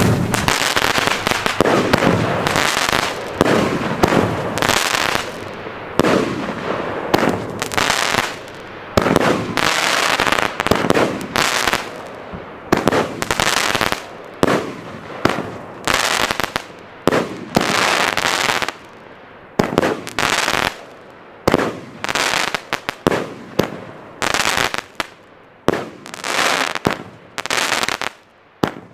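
The 'Geiler Macker', a 19-shot, 30 mm consumer firework battery, firing: a dense run of launches and bursts for about the first twelve seconds, then separate shots about a second apart, each cracking and fading out quickly.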